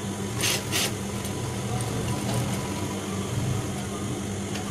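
Industrial sewing machine motor humming steadily, with two brief rustles of fabric being handled under the presser foot in the first second.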